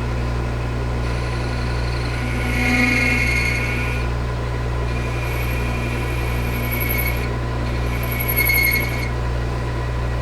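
Metal lathe running with a steady motor hum while a cutting tool takes a cut. A high-pitched singing tone from the tool comes and goes in three stretches of one to three seconds each.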